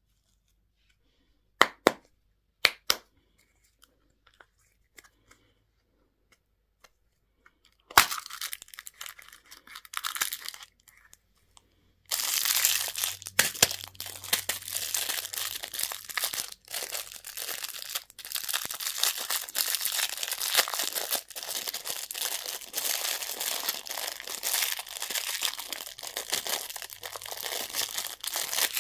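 A few sharp clicks, then candy or toy packaging being torn open and crinkled. A short bout of crinkling comes about a third of the way in, and from a little before halfway the tearing and crinkling run on without a break.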